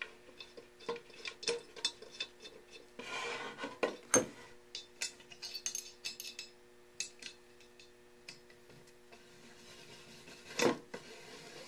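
Small metal parts clinking and clicking as screws are put through a round display base and turned into a metal post with an Allen wrench, with a short rub about three seconds in and two louder knocks, one about four seconds in and one near the end. A faint steady hum lies underneath.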